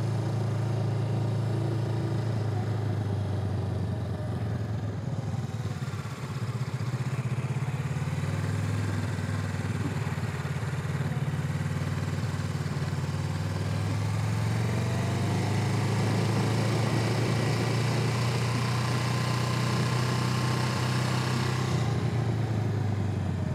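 Motorcycle engine running at low speed, its note rising and falling slightly with the throttle as the bike is ridden through slow turns.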